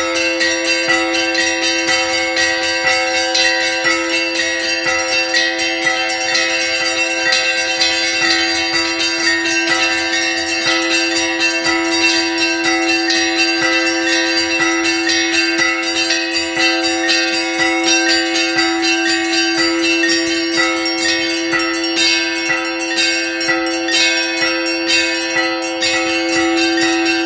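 Russian Orthodox cathedral bells rung all together in a full peal (trezvon): a fast run of strikes on the smaller bells over the steady hum of the larger bells.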